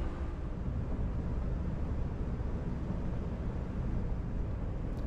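Steady low rumble of a vehicle driving, engine and road noise without change.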